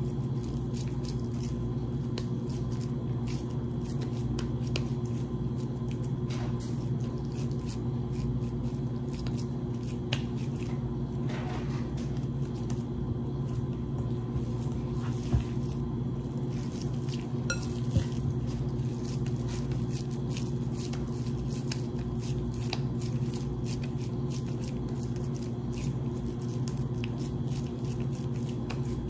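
Soft squishing and patting of raw ground beef being pressed and shaped into oval patties by hand, with scattered faint ticks. A steady low hum runs underneath throughout.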